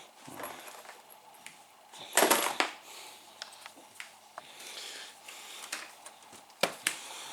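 Scattered light clicks and clatter of small hard objects being handled, with a louder rattle about two seconds in and a sharp click near the end.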